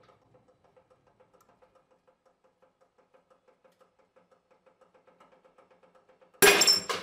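A bolt in a shear fixture breaking under a hydraulic press with a loud sharp crack about six seconds in, followed by a second crack and a brief metallic ring. Before it, a faint rapid ticking of about five a second while the load builds.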